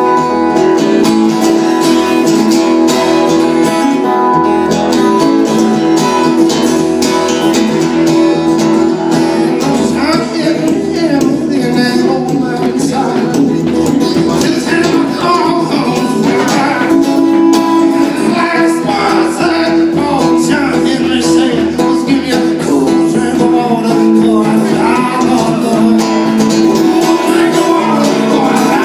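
Acoustic guitar strummed steadily in a folk-blues song, with a wavering melody line joining over the chords about ten seconds in.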